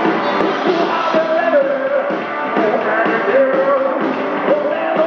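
Live rock and roll band playing loudly, a man singing held, wavering notes over the band while he plays an upright double bass.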